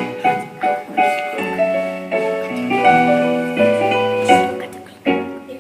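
Piano playing: a line of struck notes and chords over held bass notes, at a moderate steady pace.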